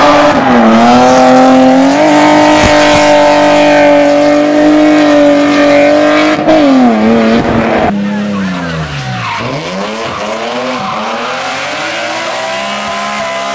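BMW rally cars sliding through a hairpin with tyres squealing: an engine held at steady high revs through a long drift, its revs falling away after about six seconds. After a cut, another car's engine revs dip sharply and climb back as it powers out of the bend.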